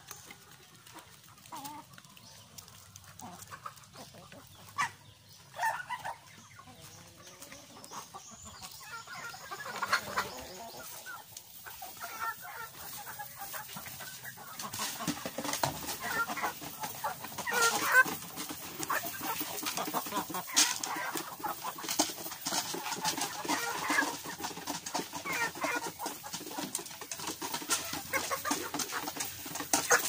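A flock of chickens clucking, with many short taps and rustles, getting busier and louder from about ten seconds in.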